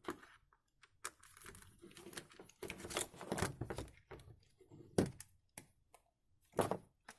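Hands handling the thin plastic parts of a cheap power strip: rustling and small plastic clicks, then two sharper knocks, about five seconds in and near the end.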